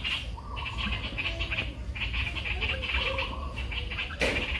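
Animal calls: a rapid, buzzy, high trill that comes and goes in bursts of about a second, with lower squeaky chirps under it, and a sharp click about four seconds in.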